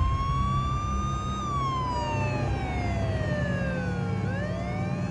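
An emergency-vehicle siren wailing: one slow cycle that rises a little, falls for about three seconds, then swings back up near the end. A steady low rumble runs underneath.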